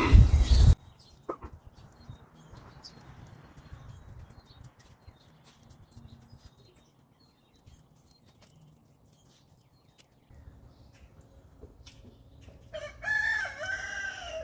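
A rooster crowing once near the end, a pitched call of about a second and a half that bends up and down. Before it, a loud noisy burst cuts off suddenly in the first second, followed by quiet with faint scattered clicks.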